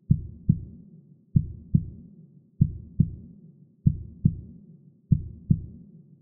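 Heartbeat sound effect: slow, deep double beats, lub-dub, about one pair every second and a quarter, five in all.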